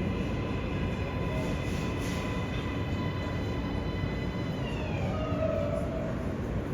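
New York City subway train (R143/R160 cars on the L line) running, a steady rumble under high whining tones that slide down in pitch about five seconds in.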